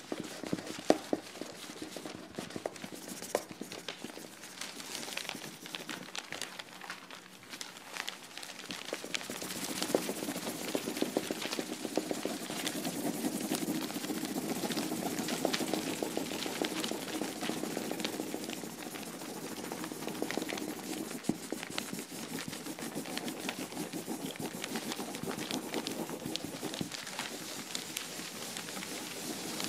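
Rapid, irregular clicking and crackling that grows louder about ten seconds in.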